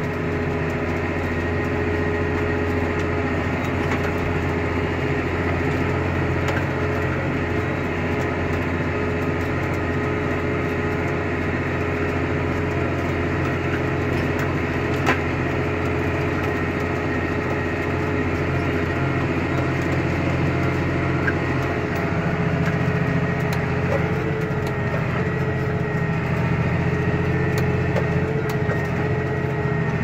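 John Deere tractor engine running at a steady speed, heard from inside the cab as an even drone with no change in pitch. A single short click about halfway through.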